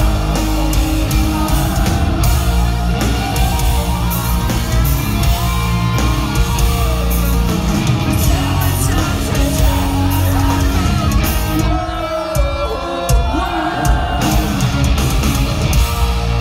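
Rock band playing live, loud, with a singer over electric guitars, bass and drums, as heard from within the audience.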